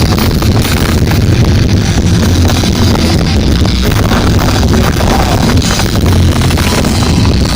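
Live punk rock band playing at full volume through a festival PA: distorted guitars, bass and drums. The audience recording is overloaded and muddy.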